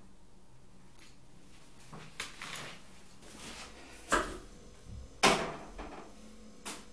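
A few separate short knocks and clicks, four in all, the loudest a little past the middle, over quiet room tone.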